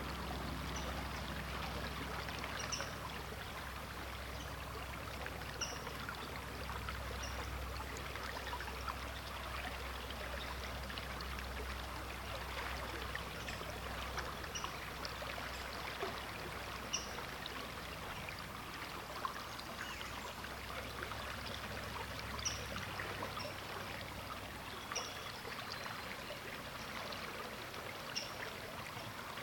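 The Sturgeon River flowing: a steady rush of moving water with many small splashes and trickles.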